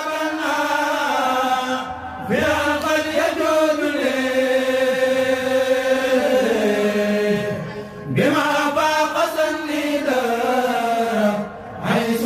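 A kourel choir chants a Mouride khassida (Sufi devotional poem) without accompaniment. The voices hold long drawn-out notes with slow slides in pitch and break briefly between phrases about 2, 8 and 11.5 seconds in.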